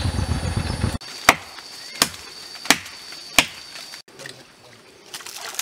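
A motorcycle engine running, cut off abruptly about a second in, then four sharp chops about 0.7 s apart: a machete blade striking wood.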